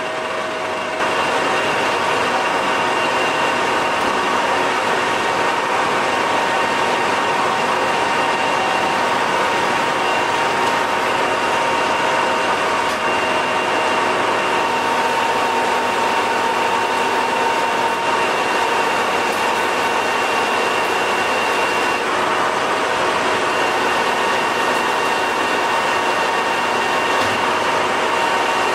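Colchester lathe running steadily while roughing down the end of a vise screw shaft: an even machine whine with several held tones, getting louder about a second in.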